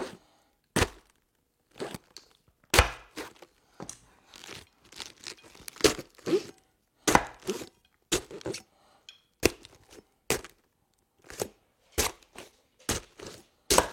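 A knife stabbing repeatedly into a head of iceberg lettuce, about eighteen sharp, crisp stabs at irregular intervals, some with a short crunchy tail: a fleshy stab sound.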